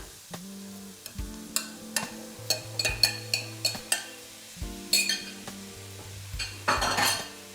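Diced chicken being tipped into a frying pan of hot oil, garlic and leeks and stirred: a utensil knocks and scrapes sharply against the pan and bowl many times, with frying sizzle, and a louder rush of sizzling noise near the end.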